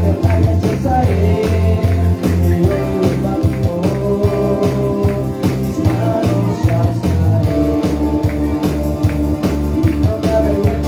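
Christian worship band music with singing: a strong bass line, guitar and a steady drum beat.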